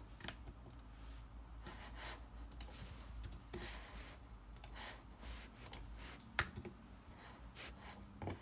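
Scattered faint clicks of a computer mouse and keyboard keys, irregularly spaced, over a faint low hum; the sharpest click comes about six and a half seconds in.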